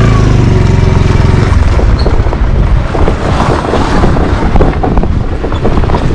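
Motorcycle engine pulling away, its low drone strong for the first second or so, then running on under heavy wind buffeting on the microphone as the bike rides.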